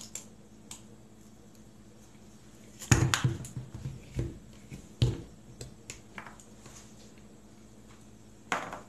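Dull knocks and light clicks of tableware being handled on a wooden cutting board: a cluster of knocks about three seconds in, more about four and five seconds in, and a short clatter near the end as a metal fork is picked up.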